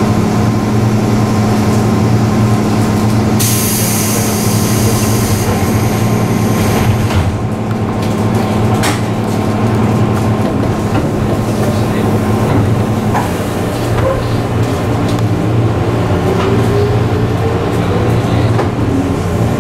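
Interior of a 201-series electric commuter train: over the steady hum of its onboard equipment, the doors close with a hiss of air about three and a half seconds in, followed by a knock. In the last few seconds the train moves off, its chopper-controlled traction motors giving a rising whine.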